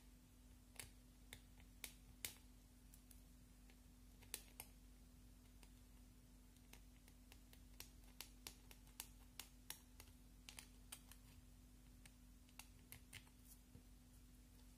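Faint, irregular sharp clicks and taps from a small hand tool scraping red lip balm out of its plastic case and dabbing it onto slime, over a steady low hum.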